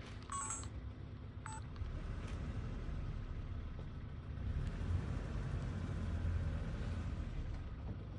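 Low, steady rumble of a vehicle engine running, growing louder for a few seconds past the middle, with two short high chirps near the start.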